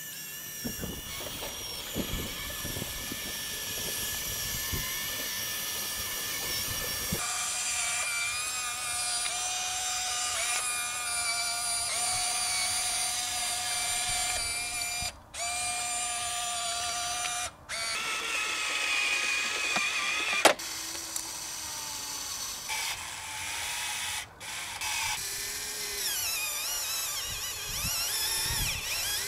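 Small electric motors and gearboxes of a Huina radio-controlled excavator whining as it works, the pitch shifting in steps as different motors start and stop. One sharp click about twenty seconds in.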